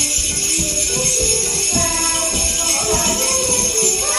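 Sleigh bells shaken in a steady, continuous jingle over recorded music with a moving melody, with many low thumps underneath.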